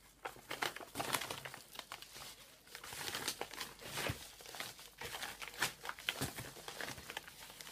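A postal envelope being torn open and handled, with its contents pulled out: irregular crinkling and rustling of paper and plastic wrapping, with short tearing sounds.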